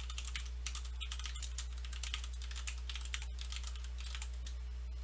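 Typing on a computer keyboard: a quick, irregular run of keystrokes over a steady low hum.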